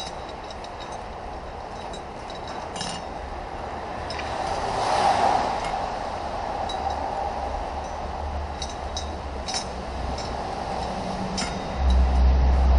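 A few light metal clinks and taps from automatic transmission parts being handled, over a steady background hum. A low rumble comes in near the end.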